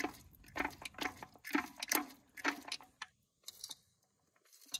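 Dry metal clicking from the Mity Kat dozer's gearbox as the drivetrain is turned by hand: about two clicks a second for the first three seconds, then a pause and one more click near the end.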